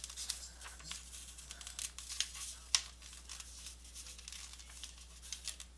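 Printed sheet of paper rustling and crinkling as it is held up and moved by hand, in scattered short crackles.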